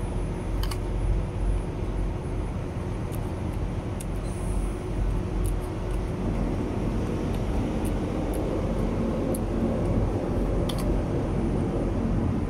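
Steady low rumble of idling truck engines, with an engine hum growing louder from about halfway through. A few sharp clicks sound over it.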